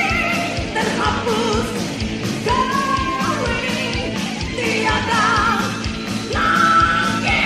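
Malay rock song from a 1990s album recording: a singer holds wavering notes in short phrases over a steady drum beat and band.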